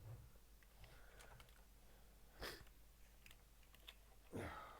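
Near silence, with a few faint clicks and taps of small plastic model parts being handled on a table, two slightly louder ones about two and a half seconds in and near the end.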